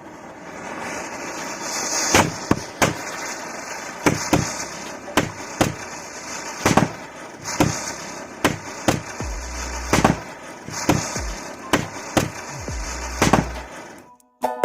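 Firecrackers going off one after another in a chain reaction: about twenty sharp bangs at uneven intervals over a continuous hissing fizz.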